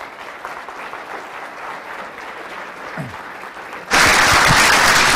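Audience applauding, the clapping growing and then turning abruptly much louder about four seconds in.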